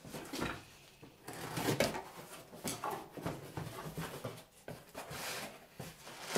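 A cardboard box being slit open and handled: irregular rustles, scrapes and light knocks of cardboard flaps and the box being set down on a metal machine table.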